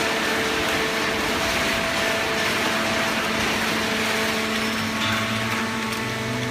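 Hydraulic paper baling machine running: a steady mechanical wash with a faint hum from the motor and pump, and a lower hum coming in about five seconds in.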